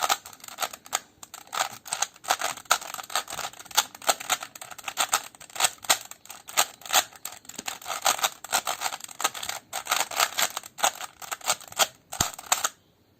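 Rubik's brand 3x3 cube being scrambled by hand: a rapid, irregular run of plastic clicks and clacks as its layers are turned, stopping just before the end. The cube is broken in and unlubricated.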